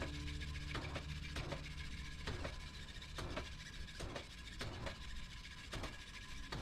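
Tire changer working a low-profile 245/45R18 tire: irregular rubbing, scraping knocks of the rubber bead against the rim and mounting head, about two a second, over a low steady hum.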